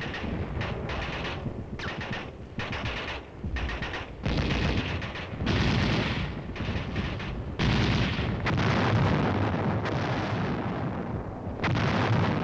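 Machine-gun fire in bursts: short choppy bursts over the first few seconds, then longer, nearly continuous strings of fire.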